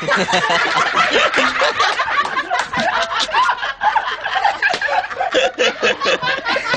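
Several men snickering and laughing together, their voices overlapping.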